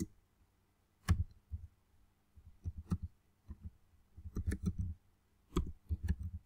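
Typing on a computer keyboard: irregular key clicks with a low thump under each, starting about a second in and coming in quick flurries of several keystrokes with short gaps between them.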